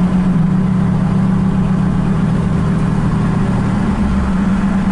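Diesel or vehicle engine running steadily with a low, even hum; a deeper rumble joins about four seconds in.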